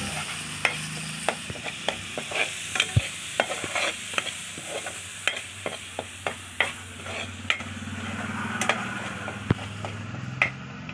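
Metal spatula stirring and scraping masala paste in a kadhai, clicking irregularly against the pan about once or twice a second, over a steady sizzle of the paste frying with a little water added.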